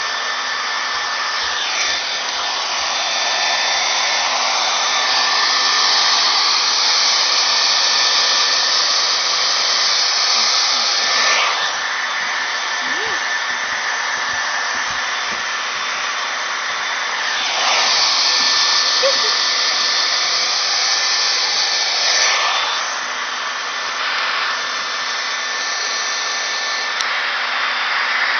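Steady loud rushing noise of air with a faint thin whine, like a small electric blower running; it swells and eases a few times.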